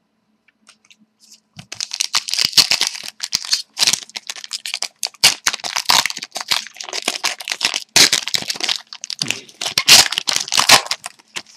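Plastic or foil wrapping on a pack of hockey cards crinkling and tearing as the pack is opened and the cards are handled, a dense run of crackles starting about a second and a half in.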